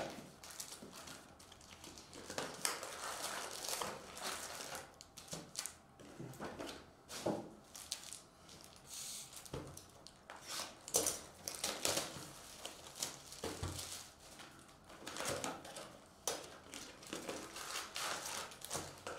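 Wrapped trading-card packs and a cardboard hobby box being handled: irregular crinkling and rustling with short, sharp crackles as packs are lifted out and stacked.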